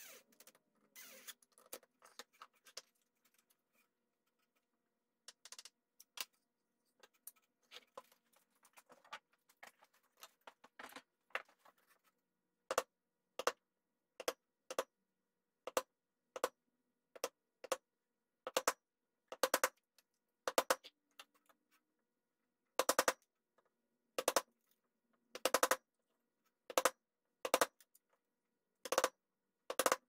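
Wooden mallet striking a wood chisel, chopping a mortise into a wooden board: sharp knocks, often two or three in quick succession. The knocks start about halfway through and keep coming a second or so apart. Before them come only faint, scattered taps and scrapes.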